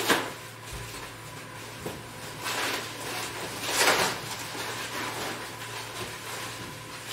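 Plastic film and foam packaging wrap rustling and crinkling as it is handled and pulled off, with a few louder rustles.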